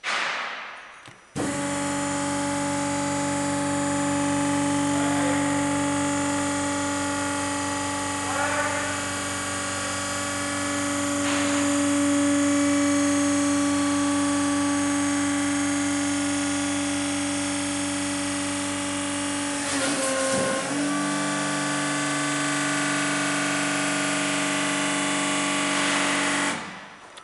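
Hydraulic pump motor of an Italpresse XL veneer press running steadily as the table rises and the press closes under pressure. It starts about a second in and cuts off suddenly just before the end, with a brief rattle and dip in its tone about three-quarters of the way through.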